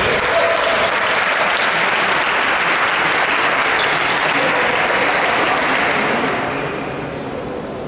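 Spectators applauding after a point in a badminton match; the clapping dies away about six seconds in.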